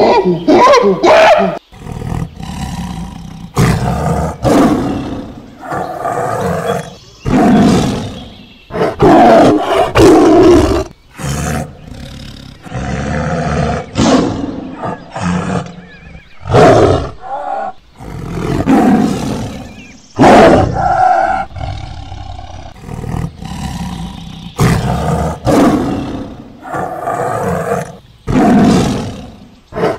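Tiger roaring again and again: a long series of loud roars, each about a second long, coming every second or two.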